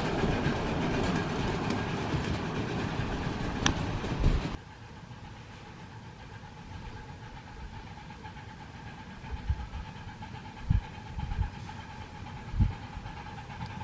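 Ride-on live steam model train running on its track, with wheels clicking over rail joints. The sound drops off suddenly about four and a half seconds in, leaving a quieter background with a few low thumps.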